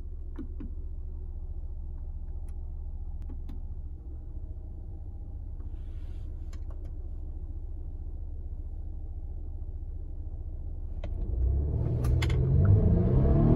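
2020 Volvo XC60 T5's 2.0-litre turbocharged four-cylinder engine idling steadily, heard from inside the cabin, with scattered clicks from the console controls. About eleven seconds in the engine revs up, rising in pitch and getting louder as the car sets off under hard acceleration.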